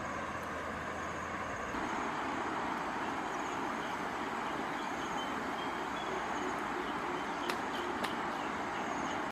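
Steady rushing outdoor background noise that steps up a little about two seconds in, with a faint high trill above it and two sharp clicks near the end.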